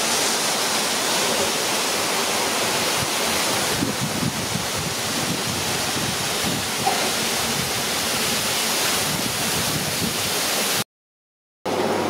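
Pakoda batter deep-frying in a large brass kadai of hot oil: a loud, steady sizzle that cuts out completely for under a second near the end.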